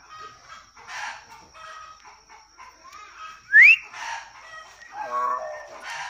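Caged hill myna mimicking chicken sounds in a string of short separate calls. A sharp rising whistle a little past the middle is the loudest.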